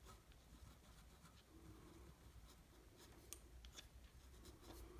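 Fine-tipped pen scratching faintly on paper as a signature is written, in short strokes with small ticks as the nib lifts and lands.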